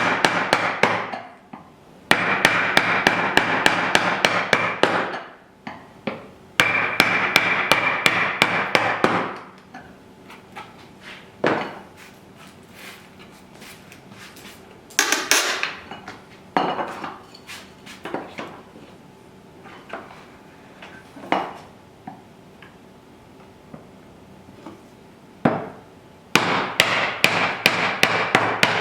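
Hand tools working wood for a lap joint. Runs of rapid, even strokes, about four a second, come in bursts of two to three seconds. A quieter middle stretch holds scattered single knocks and taps.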